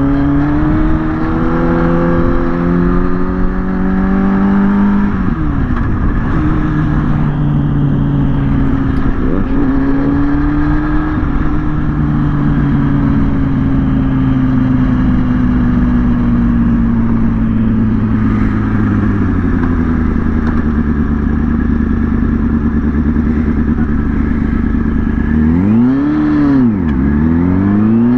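Kawasaki ZX-6R's inline-four engine pulling under way: revs climb at the start, change about five seconds in, then hold and ease slowly down through a long cruise. Near the end the revs drop sharply and climb straight back up.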